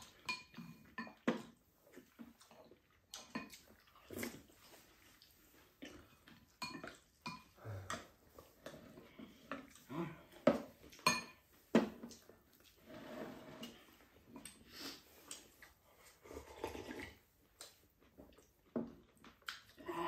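Chopsticks and spoons clicking and scraping against ceramic bowls as two people eat, in short, irregular clinks.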